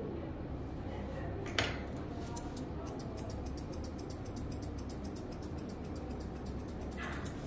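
Grooming scissors snipping rapidly and lightly through a Chinese Crested's long head and face hair, after a sharp metallic click about one and a half seconds in, over a low steady background hum.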